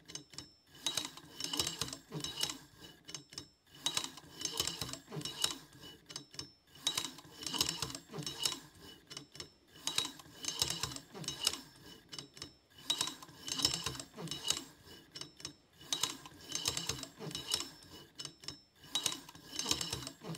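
Stepper motor turning a safe combination lock's dial in repeated measuring cycles, about every two and a half to three seconds: a high whine with rapid clicking from the motor and the lock's wheel pack, then a brief pause. Each cycle is one automated reading of the contact point at a new dial position, mapping the wheel gates.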